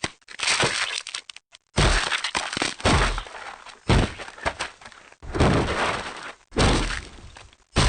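A string of crash and breaking sound effects: sharp impacts one after another, each dying away quickly, some with a glassy shatter.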